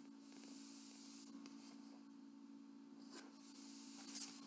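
Pages of a picture book being turned and the book handled: paper rubbing and rustling in two stretches of about a second each, over a steady low hum.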